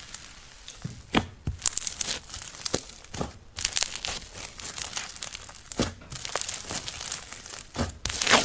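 Slime being squeezed and stretched by hand: irregular sticky crackling with sharp pops, the loudest pop near the end.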